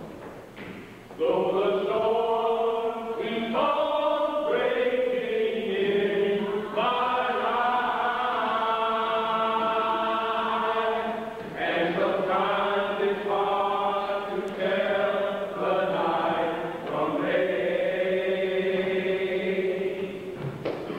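Church choir singing, its voices entering about a second in and holding long notes in phrases, with short breaks between phrases.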